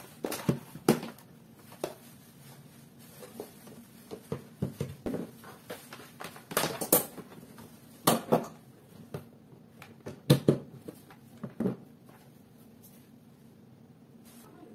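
Hands setting down and shifting plastic kitchen appliances, a blender base and a rice cooker, on a countertop: a string of irregular knocks and clicks, with the loudest knocks clustered about halfway through and again a little later.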